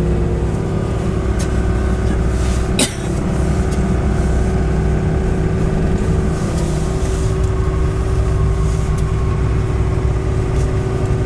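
Bombardier snowcat's diesel engine running with a steady low drone as it works through deep snow, heard from inside the cab. A single sharp knock about three seconds in.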